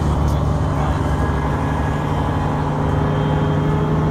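An engine running steadily, with an even low hum.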